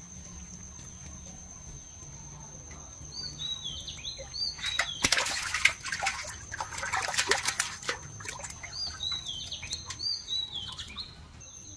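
Freshly caught fish thrashing and splashing in a bucket of water for about three seconds in the middle. Short chirping bird calls come just before and just after the splashing.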